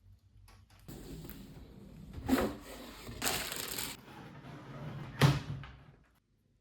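Computer parts being handled and fitted, heard as a scraping, rustling haze with two sharp knocks, about two and five seconds in.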